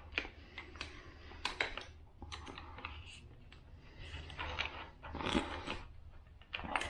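Screwdriver prying at the metal spring on a 2009 Toyota Corolla's stock shifter assembly: a run of small irregular metallic clicks and scrapes, with a louder clack about five seconds in.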